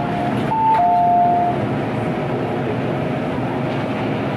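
Electronic two-note chime on an MTR M-Train, a high note then a lower one, ending about a second and a half in. Under it and after it, the steady running rumble of the train with a faint steady hum.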